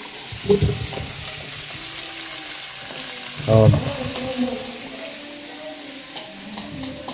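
Food frying in hot oil in a pan: a steady sizzle with stirring. Two short bursts of a voice come through, about half a second in and again around three and a half seconds.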